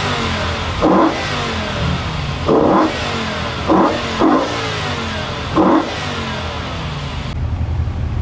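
BMW M5 E61 Touring's 5.0-litre V10 with a SuperSprint exhaust, idling with five short throttle blips spread over about five seconds, two of them close together in the middle, each revving quickly and falling back to idle. Near the end only the steady idle is left.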